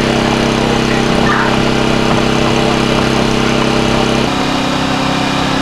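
Small engine of a hydraulic rescue tool's power unit (jaws of life) running steadily, its note changing about four seconds in as the tool is worked on the pickup's door.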